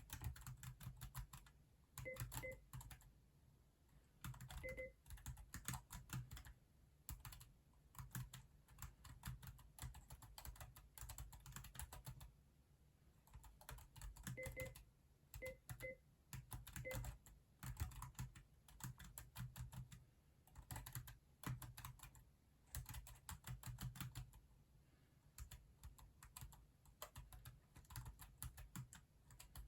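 Typing on a Keychron K6 mechanical keyboard: quick runs of key clicks broken by short pauses.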